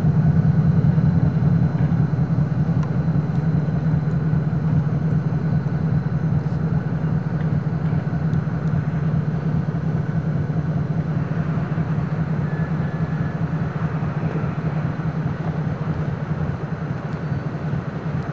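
2TE10U two-section diesel locomotive's 10D100 two-stroke opposed-piston diesel engines running with a steady low drone, slowly fading as the locomotive moves away.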